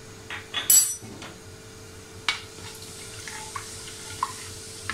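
A spatula clattering and knocking against an aluminium karahi, loudest near the start, with a sharp click a couple of seconds in, as whole cumin seeds fry in hot oil.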